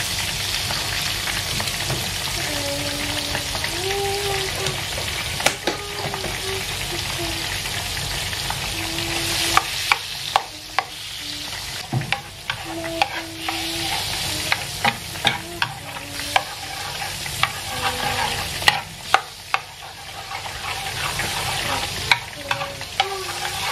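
Butter sizzling as it melts and foams in a frying pan, the first step of a roux for béchamel sauce. A metal spoon stirs it, clinking and scraping against the pan, with the clicks coming thicker from about halfway through.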